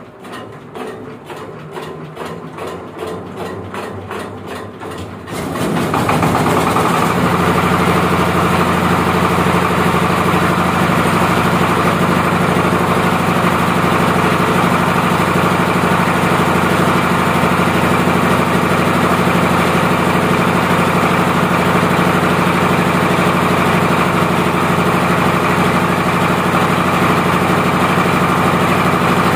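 Horizontal diesel engine being hand-cranked, its compression thumps quickening and growing louder, then catching about five seconds in and running steadily and loudly as it warms up.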